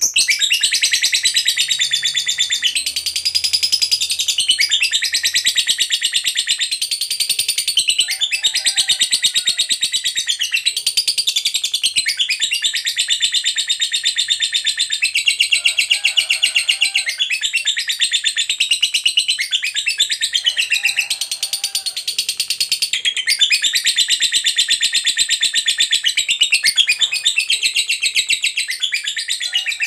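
Lovebird 'ngekek panjang': long runs of rapid, shrill chattering trills, each lasting several seconds with brief breaks between. This is the extended chatter of a lovebird in full song that keepers prize and play to provoke other lovebirds into singing.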